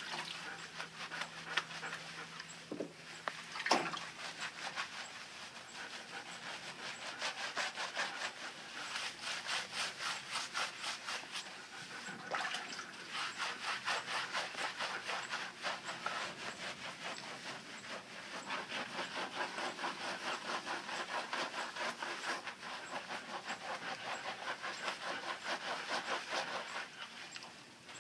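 Hands scrubbing lather into a standard poodle's wet, soapy coat in a quick, steady back-and-forth rhythm, easing off a few seconds in and briefly again midway, with the dog panting.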